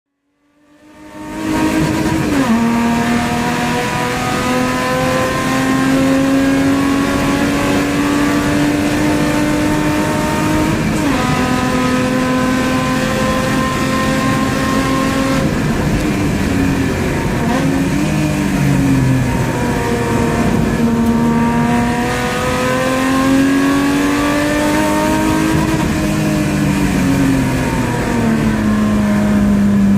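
Onboard sound of a car's engine driven hard around a race circuit lap. The engine note climbs slowly in pitch under load, then drops sharply at gear changes and lifts, about half a dozen times, after fading in over the first second or two.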